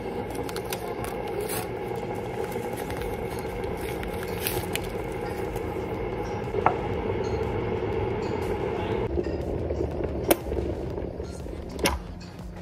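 Rival electric kettle heating water towards the boil: a steady rushing rumble that changes about nine seconds in, with a couple of sharp clicks near the end.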